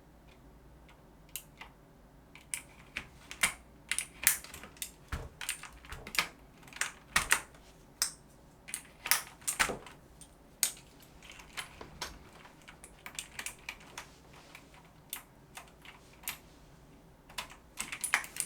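Typing on a Varmilo mechanical keyboard: irregular runs of sharp key clicks, beginning about a second in.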